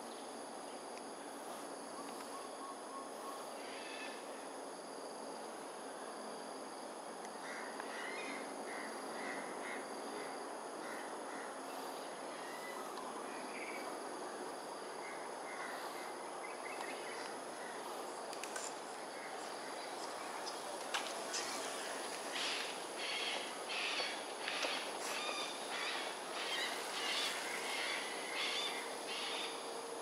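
Harsh bird calls repeated many times, loudest in a long run over the last third, with a softer series of short calls earlier. Under them, a steady high insect whine and steady background noise.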